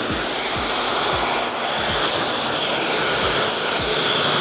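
Handheld hair dryer blowing steadily, with a regular low beat of background music underneath.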